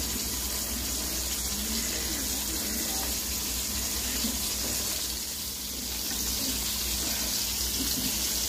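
Pieces of sun-dried cá dứa catfish sizzling steadily as they fry in hot oil in a wok.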